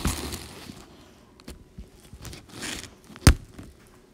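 A dog mouthing and chewing a plush toy bone close to the microphone gives two rustling, scraping bursts. A single sharp knock comes about three seconds in. No squeaker is heard.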